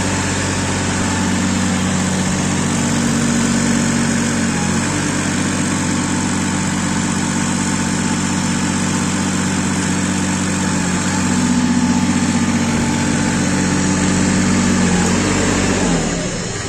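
Compact four-wheel-drive tractor's diesel engine running steadily as the tractor drives with its front loader raised. Its note shifts a little a couple of times, and it drops away near the end.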